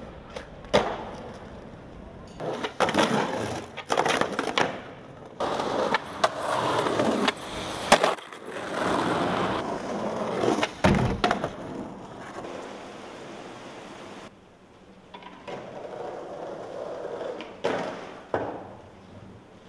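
Skateboards on stone and concrete: wheels rolling over paving, with sharp wooden clacks of boards popping and landing several times, and the scrape of boards and trucks sliding along stone ledges.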